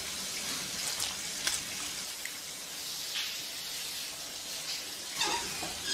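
Shower running: a steady hiss of spraying water, with a few faint clicks and a short louder sound about five seconds in.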